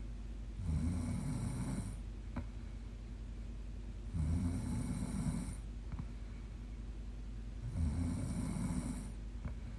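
A young woman snoring in her sleep: three snores, each about a second and a half long, coming roughly every three and a half seconds, with quieter breathing between them.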